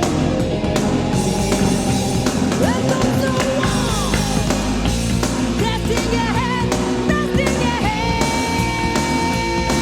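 A Japanese heavy metal recording with distorted guitars and drums. A melodic lead line glides and wavers, then holds a long note from about eight seconds in.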